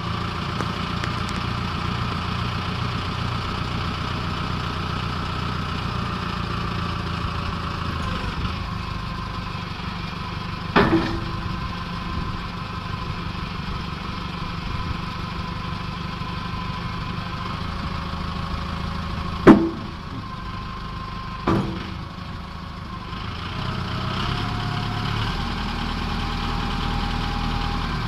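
Backhoe loader's diesel engine running steadily, with three sharp knocks, one about a third of the way in and two close together later on. The engine grows louder and its note shifts near the end.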